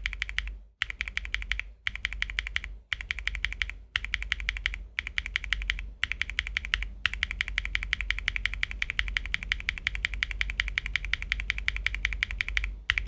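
Fast typing on a mechanical keyboard fitted with BSUN Hutt tactile switches (PC top housing, POK stem, PA12 bottom housing, factory-lubed): a dense run of keystroke clacks. Short pauses break it about once a second for the first seven seconds, then it runs on without a break.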